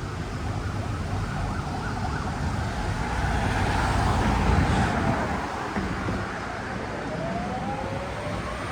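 An emergency vehicle siren wailing, its pitch sweeping slowly down and then back up, over the steady noise of passing road traffic.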